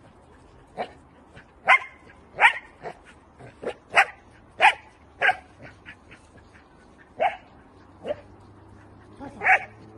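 Dutch Shepherd puppy barking in short, sharp single barks, about ten of them at uneven intervals: the aroused barking of a young dog worked up in a protection-training game.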